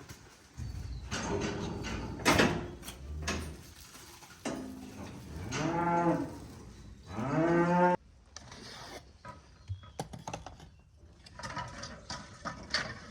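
Cows mooing: two long moos that rise and fall in pitch, the second cut off abruptly. Scattered knocks and clatter come before and after them.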